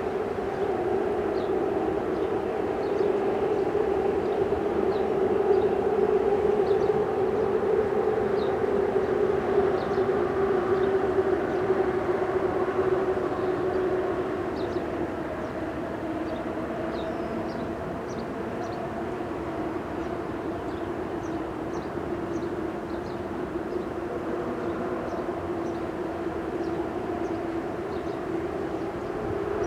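A bridge's steady droning hum, a low pitched tone with overtones that dips slightly in pitch and loudness about halfway through. Faint, short high chirps sound now and then above it.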